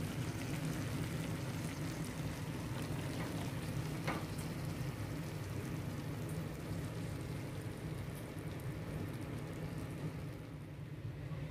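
Stir-fried noodles and vegetables sizzling in a wok: a steady crackling hiss over a low hum, with a couple of faint ticks three to four seconds in.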